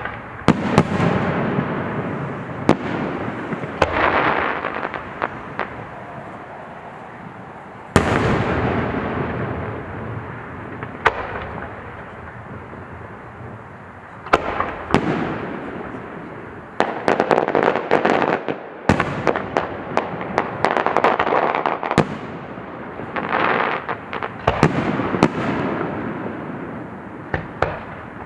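Aerial fireworks going off in a fast series: sharp booms, each followed by a long fading rumble, with stretches of dense crackling in between.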